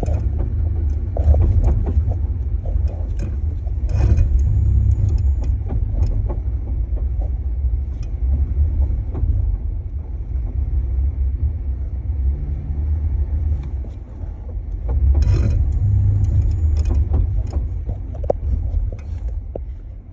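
Jeep Gladiator Mojave with a steady low rumble and irregular sharp knocks and clicks, clustered about 4 seconds in and again about 15 seconds in. This is the grinding and knocking noise whose cause the owner is asking about.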